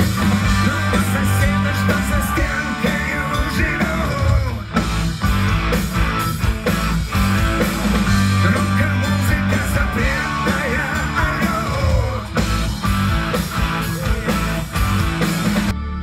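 Live rock band playing a song: electric bass, electric guitar and drums, with a man singing lead.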